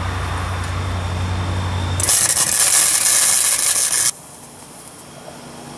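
A low steady hum, then about two seconds in a wire-feed welder strikes its arc and lays a tack weld on a steel truck frame rail: a loud, even crackling hiss lasting about two seconds that cuts off suddenly.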